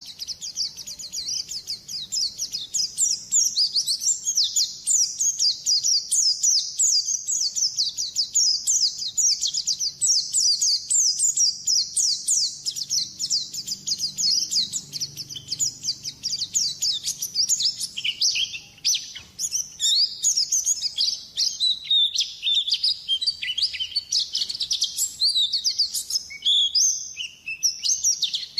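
White-eye (pleci) singing a fast, continuous high twittering song made of rapid chirps and short falling notes.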